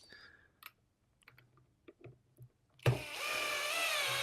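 Bosch drill-driver on a very light torque setting driving a small wood screw through a candle cup into wood. A few faint clicks come first; then, near the end, the motor starts and runs with a steady whine for over a second.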